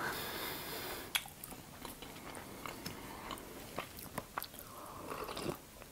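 Quiet, close-miked mouth sounds: small chewing clicks, then a soft sip of hot tea from a mug near the end.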